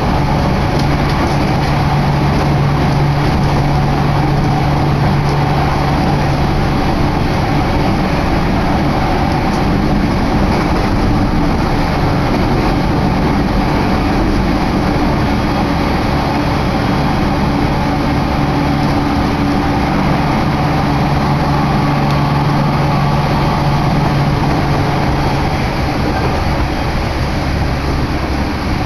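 An electric train running at speed, heard from inside a carriage: a steady rush of running noise from the wheels and rails. A low hum under it drops away about a quarter of the way in and comes back later.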